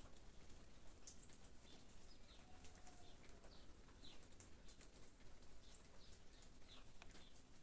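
Faint light rain pattering, with small birds giving short chirps that fall in pitch, about one a second.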